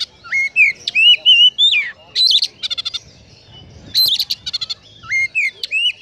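Oriental magpie-robin (kacer) singing a fast, varied song: clear whistled notes that slide up and down, alternating with quick rattling trills, laced with copied Eurasian tree sparrow phrases.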